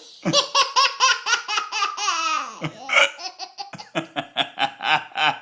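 Baby laughing hard: a fast run of short laughs, about six a second, that trails off in a falling note about two seconds in, followed by a second run of laughs near the end.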